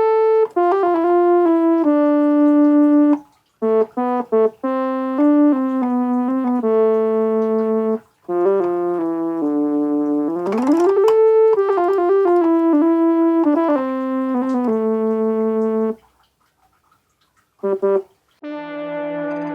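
Electronic keyboard playing a melody in short phrases with a brass-like tone. There is an upward pitch slide about ten seconds in, and the playing breaks off at about sixteen seconds before a few more notes near the end.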